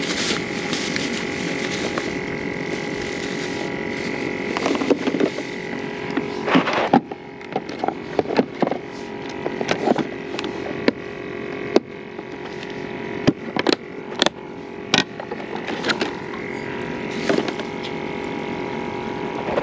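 Steady mechanical hum made of several fixed tones, with sharp plastic clicks and knocks from about seven seconds in as a tackle box and fishing gear are handled.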